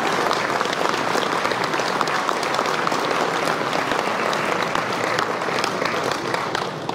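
Audience applauding steadily, many hands clapping at once, dying away near the end.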